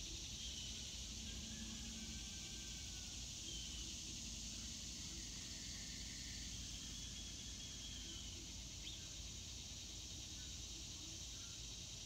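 Steady high-pitched insect chorus, with a few short, faint bird chirps scattered through, over a low steady rumble.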